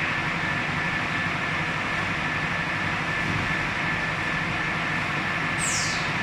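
EPS foam CNC cutting machine running with a steady hum and hiss and a constant high whine. Near the end a brief whine falls in pitch.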